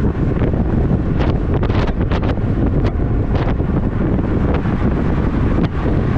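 Wind buffeting the microphone of a camera on a car at freeway speed, over a steady deep road rumble, with short crackles now and then.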